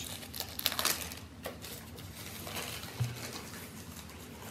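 Hands handling unboxing packaging and small accessories: paper and plastic rustling, with a quick cluster of light clicks and taps in the first second and scattered softer handling noises after.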